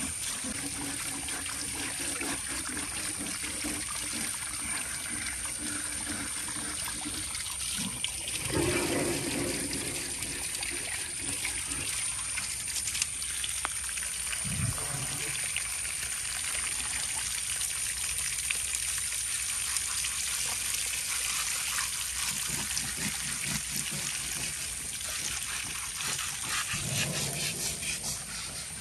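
Water running and splashing steadily, louder for a moment about eight seconds in and again near the end.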